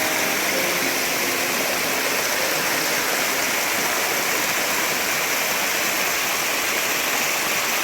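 Steady, even rush of heavy running water with no breaks.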